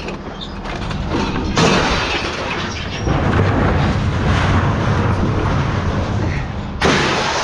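Stainless steel scrap being loaded, with heavy metal pieces crashing and clattering. There are sudden loud crashes about one and a half seconds in and again near the end.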